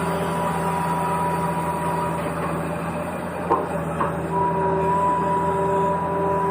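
Small electric motors of a radio-controlled toy excavator whining steadily over a low hum, the whine dropping away for about two seconds midway, with two short clicks in that gap.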